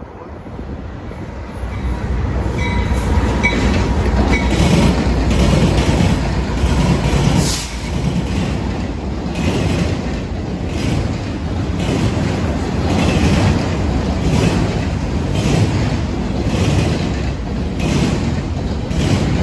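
Double-stack intermodal freight train passing close by: the locomotive's rumble builds as it approaches over the first few seconds, then the container cars roll past with a steady rumble and a regular clatter of wheels over the rails about once a second.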